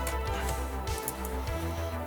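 Background electronic music with sustained bass notes and held synth tones; the bass note changes about one and a half seconds in.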